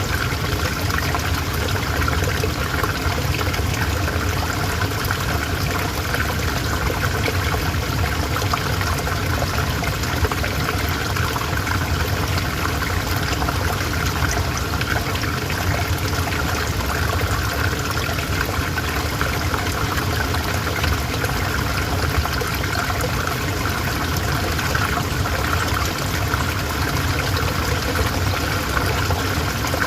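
River water flowing steadily over stones, a continuous trickling rush.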